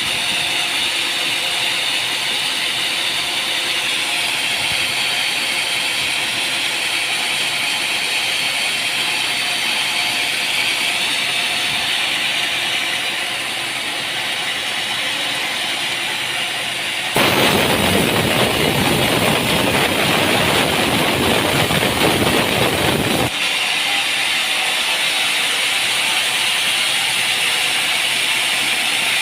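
Sawmill machinery running steadily with a high-pitched hiss, then a louder noise across the whole range for about six seconds in the second half before it settles back.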